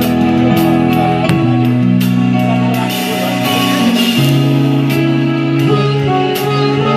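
Digital keyboard playing long held chords that change every second or two, with light high ticks over them.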